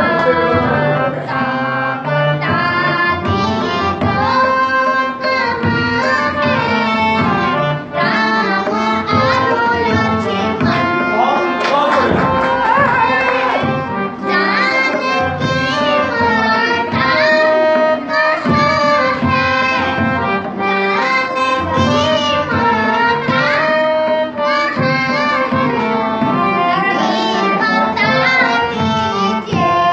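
A singer's voice performing a Ramlila song, accompanied by tabla and other instruments in continuous music.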